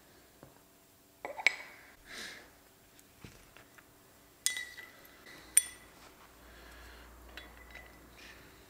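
Metal clinking as cutters and their fixings are fitted into a Whitehill cutter block with a hex key: a few sharp clinks with a short high ring, about a second and a half in, then twice more around the middle, with lighter taps between.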